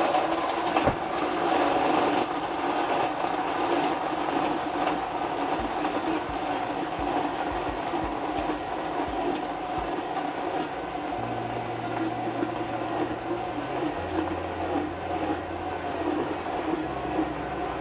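Countertop electric blender running steadily, blending a red fruit smoothie in its jar.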